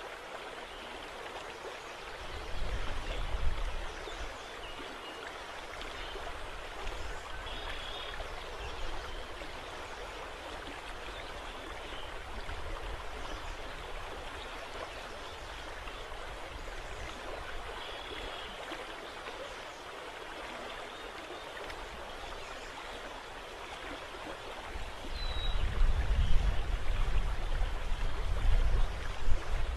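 Steady rushing of wind and rippling water across an open river. Low rumbling gusts of wind hit the microphone a few seconds in and again through the last few seconds.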